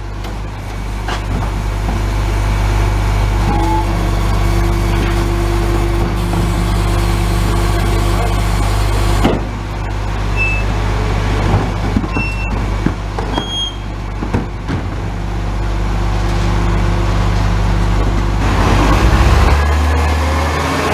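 Rear-loading garbage truck running at the kerb, its diesel engine and hydraulics humming steadily while the rear bin lifter tips wheelie bins and the compactor cycles, with clatter and knocks from the bins. Near the end the engine note rises as the truck pulls away.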